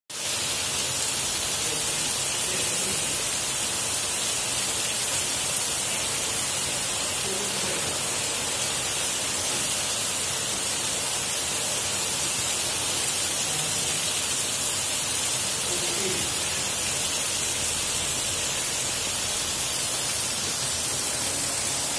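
Heavy monsoon rain pouring down: a steady, even hiss that does not let up.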